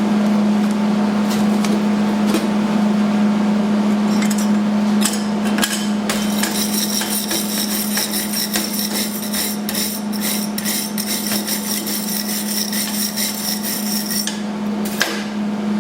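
Metal tool knocking and scraping on a metal workpiece: a few scattered knocks, then a dense run of rapid tapping and scraping for about eight seconds, over a steady low hum.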